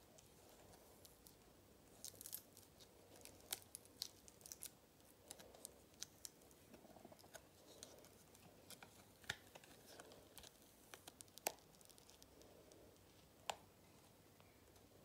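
Epoxy resin coaster being worked out of a flexible hexagonal mold: scattered sharp crackles and clicks as the mold is flexed and peeled away from the cured resin.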